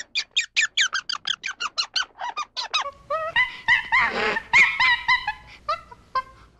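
A small animal's rapid, high-pitched squeaking: short calls that fall in pitch, about five a second, giving way about three seconds in to lower, clearer chirps and a brief rasping burst.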